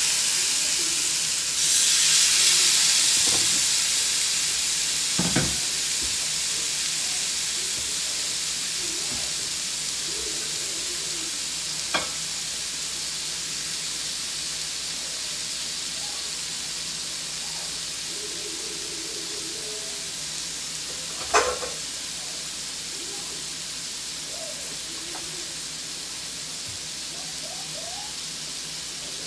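Raw chicken skewers sizzling on a hot, oiled electric grill plate. The sizzle flares up about two seconds in as another skewer is laid down, then slowly dies away, with a few light knocks.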